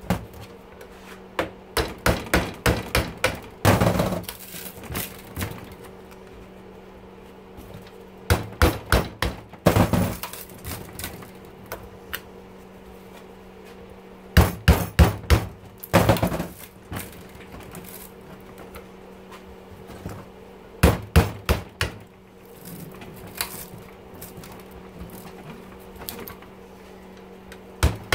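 Hammer blows driving a chisel into the copper windings of a dishwasher motor stator clamped in a steel bench vise, cutting the copper off for scrap. The blows come in several bursts of quick metal-on-metal strikes, each with a short ring, with pauses between. A low steady hum runs underneath.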